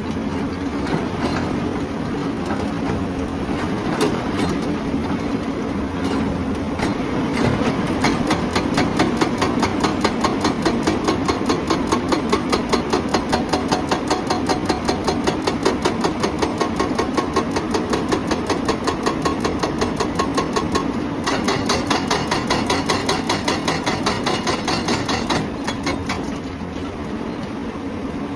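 Hydraulic breaker on a Hyundai excavator hammering rock in a rapid, even rhythm of several blows a second. It starts about a quarter of the way in and stops near the end, over the excavator's diesel engine running throughout.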